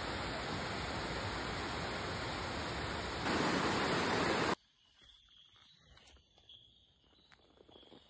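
Steady rushing of water over rocks in a small stream, growing louder about three seconds in and cutting off abruptly about a second later. After the cut there is only a faint night background with a thin, high insect buzz.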